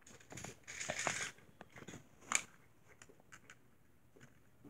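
Fingers working the plastic dispenser of a toy gumball machine: scattered small clicks, a short rasping scrape about a second in, and a sharper click about two and a half seconds in.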